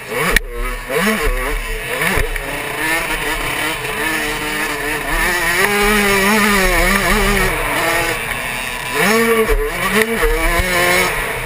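Suzuki 85cc two-stroke motocross engine at race pace, revving up and down through the gears. The pitch holds steady for a few seconds in the middle, then drops and climbs again near the end.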